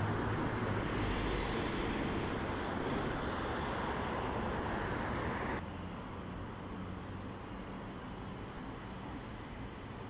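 City street traffic noise, with a car driving past close by; a little past halfway the noise drops abruptly to a quieter, steady traffic hum.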